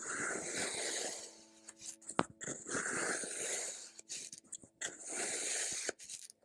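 A tool scraping through kinetic sand in three grainy, hissing strokes, each about a second long, with a couple of sharp taps between them.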